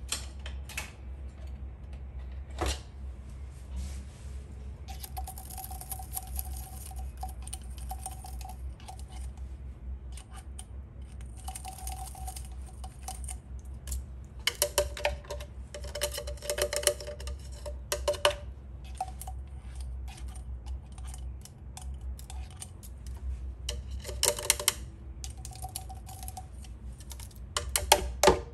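A thin wooden stick scraping and tapping inside a small glass jar to work the last of the salt out, with light clicks and clinks against the glass. The taps come in irregular spells, with the quickest and loudest runs about halfway through and again near the end.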